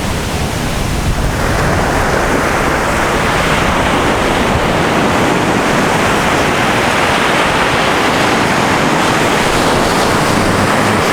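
Surf washing up on a beach: a steady rush of waves that swells about a second and a half in, with wind rumbling on the microphone.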